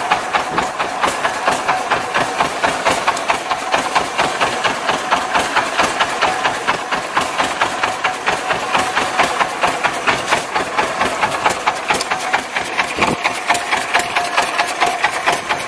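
Small wooden fishing boat's inboard engine running steadily, with an even, rapid putt-putt of about five beats a second.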